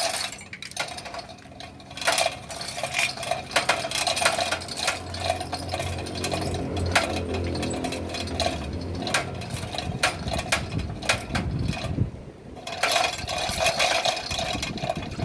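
Mechanical clatter with many sharp metallic clicks and knocks, typical of tool and engine work in a workshop. A low hum comes in about five seconds in and stops about four seconds later.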